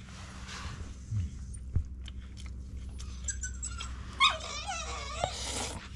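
Dog whining and whimpering in a cluster of high, wavering cries in the middle and later part, begging for the food being eaten.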